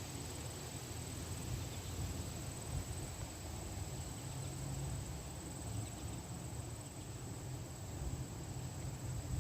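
Strong cold wind buffeting the microphone outdoors: a steady rushing noise with an uneven low rumble.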